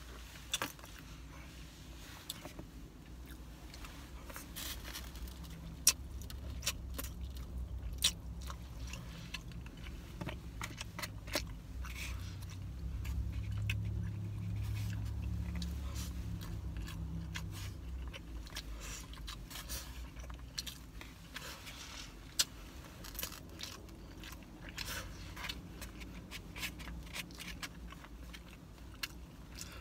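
A person chewing food with scattered clicks, scrapes and rustles as rice and chicken are picked from a styrofoam takeout box by hand. A low rumble underneath swells for several seconds in the middle.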